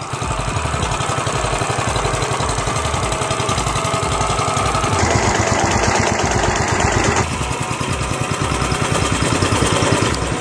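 Walk-behind Falcon sod cutter running, its small engine and cutting mechanism making a steady, rapid rattling drone; the sound grows brighter for a couple of seconds midway.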